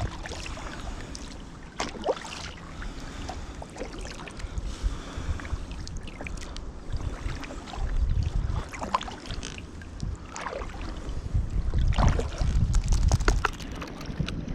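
Kayak paddling: irregular splashes of the paddle blades in the water, over a low wind rumble on the microphone that swells twice in the second half.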